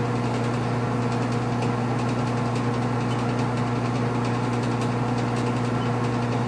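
Steady, unchanging low electrical hum with a buzz at the mains frequency, from a household appliance or the mains running in the room.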